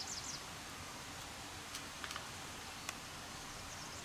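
Quiet outdoor ambience with bird calls: a quick run of high, down-slurred notes at the start, a few short sharp chirps about halfway through, and a faint short trill near the end.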